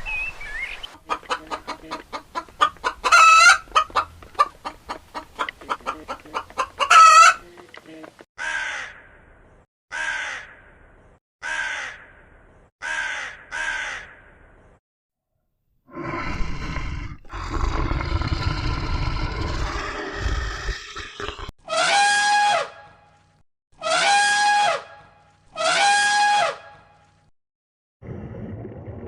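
A run of farm animal calls, one kind after another. It opens with chickens clucking rapidly and two loud calls among them, followed by spaced single calls, a noisy stretch and three long pitched calls near the end.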